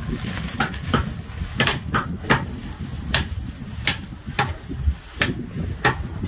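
Cleaver and knife blows chopping goat meat on wooden log chopping blocks: about a dozen sharp, irregularly spaced knocks.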